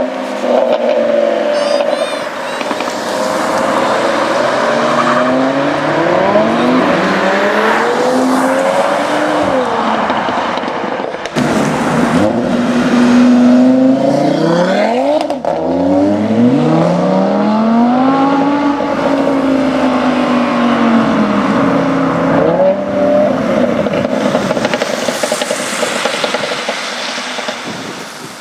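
Tuned Audi RS3 8v's turbocharged 2.5-litre five-cylinder engine through a full Milltek exhaust, accelerating hard: its pitch climbs and drops several times. The sound fades away near the end.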